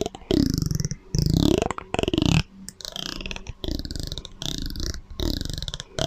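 A series of short, low, croaking mouth or throat sounds, about eight of them, each under a second, laid through a swirling echo effect. The first few are louder than the rest.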